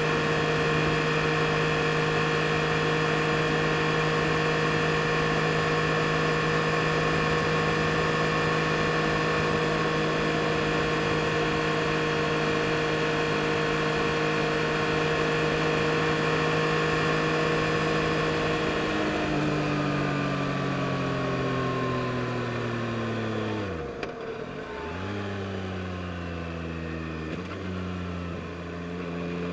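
A 2022 Yamaha MT-09 SP's three-cylinder engine holds a steady note while cruising. About two-thirds of the way through, the pitch falls as the bike slows, with two quick dips and recoveries in pitch near the end.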